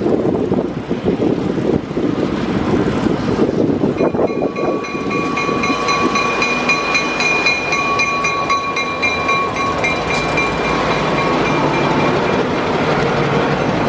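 New York & Atlantic Railway freight train rolling on the rails with a running rumble. About four seconds in, a steady high-pitched squeal sets in and keeps going.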